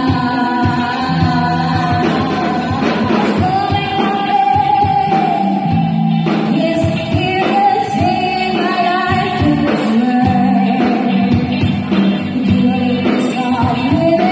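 A female vocalist sings into a microphone over a live rock band of electric guitar, bass guitar and drum kit, with held, melodic notes over a steady drum beat.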